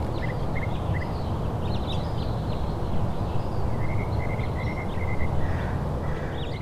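Small birds chirping in quick runs of short, high notes over a steady low outdoor rush of background noise.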